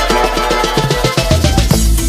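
Background music with a steady electronic beat and bass.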